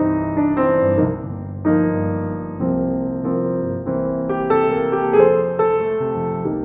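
Background music: soft piano, electric-piano chords changing about once a second.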